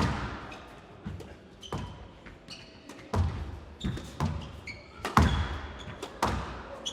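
Squash rally: the ball struck by rackets and smacking off the court walls about every half second to second, each hit echoing, with short squeaks of players' shoes on the court floor between hits.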